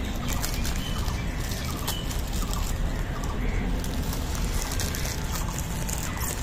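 Outdoor ambience: a steady noisy background with scattered short, high chirping animal calls.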